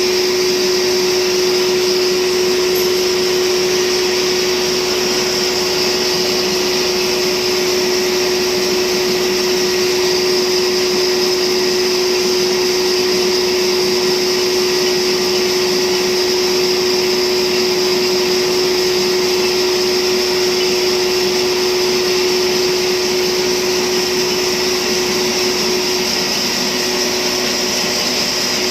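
Lathe running steadily: a constant whine over a steady hiss that does not change.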